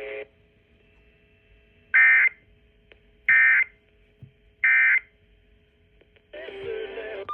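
Emergency Alert System end-of-message code: three short bursts of SAME digital data tones, each a buzzy warble of about a third of a second, spaced about 1.3 seconds apart, marking the end of the alert. A faint steady hum runs underneath, and other broadcast audio starts about a second before the end.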